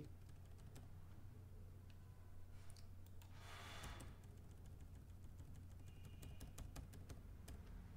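Faint scattered clicks of computer keys and a mouse as text is selected and deleted, over a low steady hum, with a quick run of key clicks near the end. A short breath-like hiss comes about three and a half seconds in.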